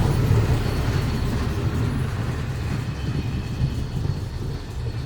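A heritage train running past and moving away, its low rumble slowly fading.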